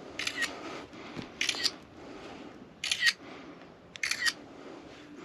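Camera shutter sounding four times, a short double click each time, about every second and a half, as photos of the damaged shingles are taken.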